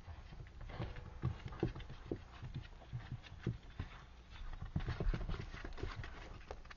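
An otter scuffling and rubbing itself on dry dirt to dry off: irregular soft thumps and scrapes with rustling, loudest about five seconds in.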